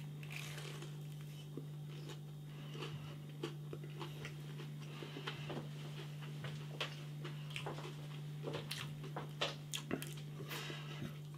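A person chewing a mouthful of chicken nugget close to the microphone: many small, irregular mouth clicks and soft crunches, over a steady low hum.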